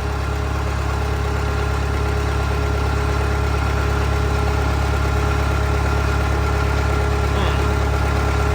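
Case 188 four-cylinder diesel engine of a Case 580CK backhoe, running steadily at idle.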